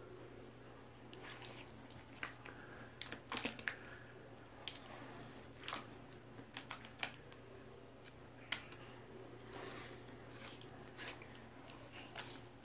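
Irregular soft crackles and squishes of thick gray slime coating a head and clothing, over a steady low hum.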